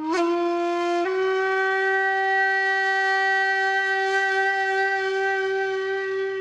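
Background music: a wind instrument holding one long, breathy note that steps up in pitch twice in the first second, then stays steady.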